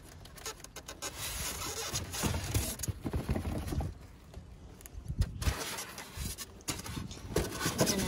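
Cardboard boxes and plastic bags being shifted and scraped by a gloved hand, with irregular rustling and a few sharp knocks, the loudest about five seconds in.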